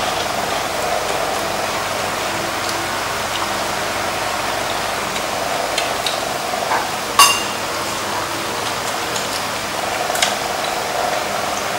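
Steady whir of an electric fan, with a few sharp clinks of chopsticks and spoons against bowls and a metal pan. The loudest clink, about seven seconds in, rings briefly.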